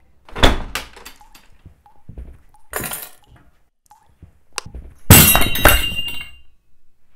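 A loud bang, a few scattered knocks and thuds, then about five seconds in a crash of breaking glass and clattering objects, knocked over in the dark, that rings for a moment as it dies away.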